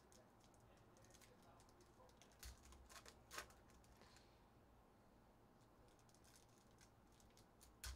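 Near silence, with faint crinkles and clicks from a foil trading-card pack being handled and opened, a few sharper ticks about two and a half to three and a half seconds in and again near the end.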